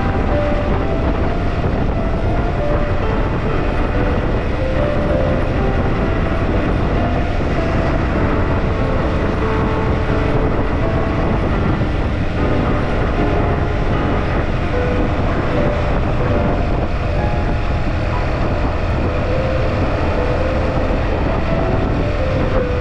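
Riding on a motorcycle: steady wind rush and rumble on the microphone over the engine and road noise.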